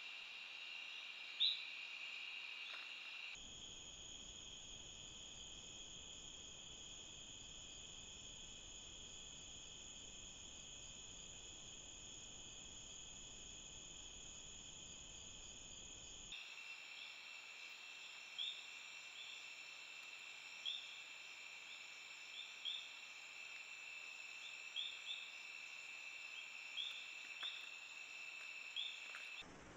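Night chorus of insects, crickets among them, a steady high-pitched trill, joined in places by short high chirps every second or two.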